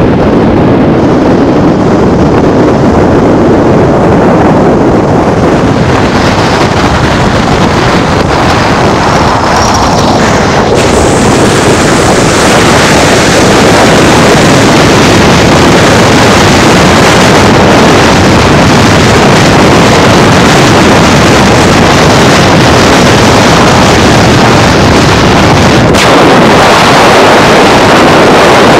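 Loud, steady rush of wind and road noise from a car travelling at freeway speed, heard from inside the car. The noise grows brighter and a little louder about eleven to thirteen seconds in.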